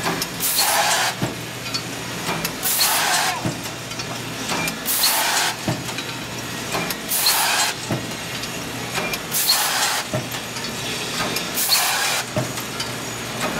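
Cold-forging press with transfer tooling cycling about every two seconds: each cycle a loud hiss of compressed air lasting under a second, then a short knock, over a steady machine hum. Six cycles in all.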